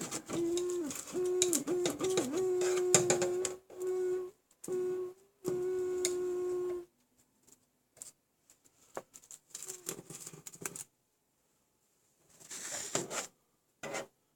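Aluminium window whistling in the draught: a steady tone that stops and starts several times and wavers briefly, made by leftover protective film between the frame profile and the cover strip vibrating in the airflow. After about seven seconds the whistle stops, leaving scattered clicks and short rustles.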